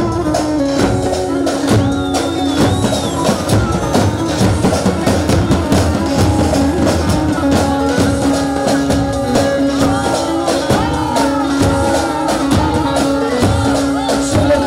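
Davul and zurna playing halay dance music: the big double-headed drum beats a dense, steady rhythm under a wavering, ornamented melody over a held drone note.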